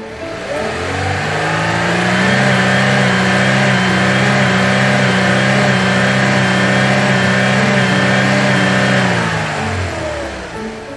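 A vehicle engine revving up, running at a steady high pitch for several seconds, then winding down near the end.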